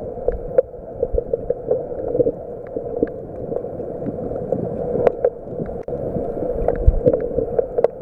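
Underwater reef sound picked up by a submerged camera: a steady, muffled rushing with many short, sharp clicks and crackles scattered through it, a few a second.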